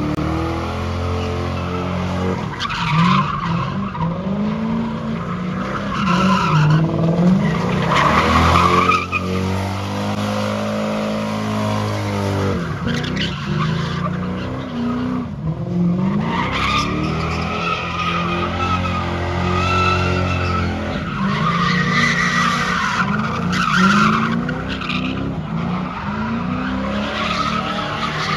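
A car doing donuts: its engine revs up and down over and over, held high for a few seconds at a time, while the rear tyres squeal and skid without a break as they burn into smoke.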